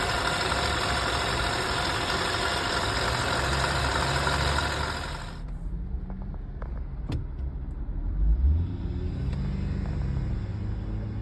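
Honda Accord V6 engine running with a loud hissing, whining noise over it, the kind of abnormal noise the owner is asking about. The noise cuts off abruptly about five seconds in and leaves the engine's low hum, with a single click about two seconds later.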